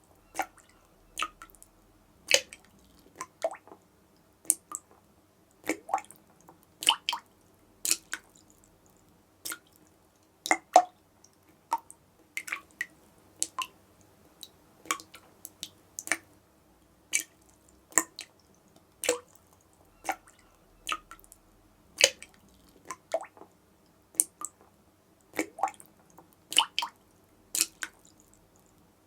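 A dripping tap: water drops falling one after another at an uneven pace of about one to two a second, each a short sharp drip, some louder than others and some coming in quick pairs.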